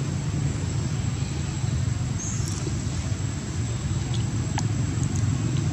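Steady low outdoor rumble with a thin, steady high-pitched tone above it, and a few brief, faint high squeaks around the middle.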